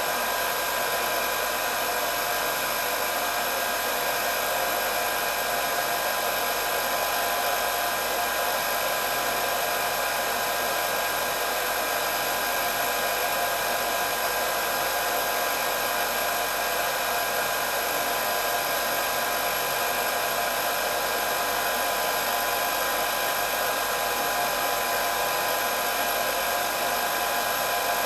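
Hair dryer running steadily: an even rush of blown air with a constant high motor whine over it.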